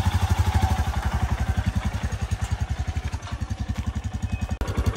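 Royal Enfield Himalayan's single-cylinder engine thumping steadily at low revs as the bike is ridden, an even beat of about a dozen pulses a second.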